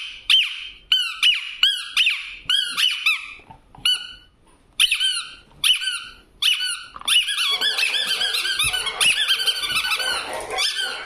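Green spiky rubber squeaky bone toy squeezed over and over: short high squeaks about two a second, a brief pause about four seconds in, then from about seven seconds a fast, dense run of overlapping squeaks.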